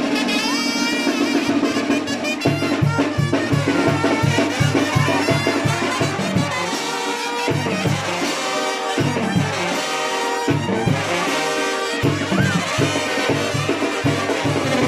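Brass band music: trumpets and trombones playing a tune over a bass line pulsing about three notes a second.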